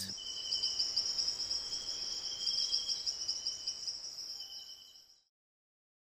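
Rainforest insects trilling steadily, one high-pitched trill with a lower one beneath it, fading out about four seconds in and ending in silence about a second later.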